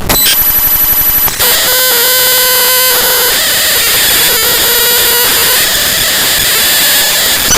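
Raw bytes of the Adobe AIR.dll file played back as audio: loud, harsh digital noise. A fast buzzing pulse for about the first second and a half gives way to a steady hiss with a held buzzy tone, which fades into plain hiss after a few seconds.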